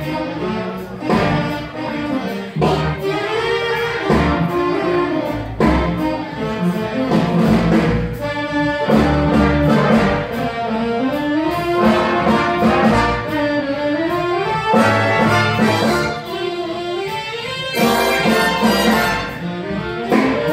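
Live big band playing jazz, with saxophones and brass carrying the tune over a steady beat.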